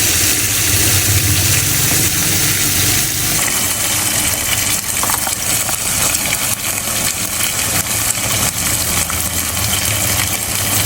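Steak searing in butter and oil in a pan: a steady sizzle with fine crackles, over a steady low hum that is strongest in the first few seconds.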